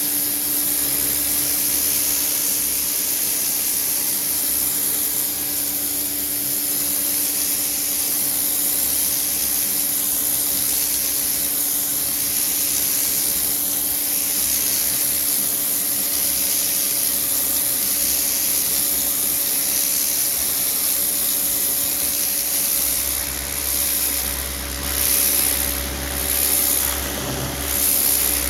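Bosch UniversalAquatak 135 electric pressure washer running: a steady motor-pump hum under the hiss of the high-pressure water jet spraying. In the last few seconds the spray noise swells and fades about once a second.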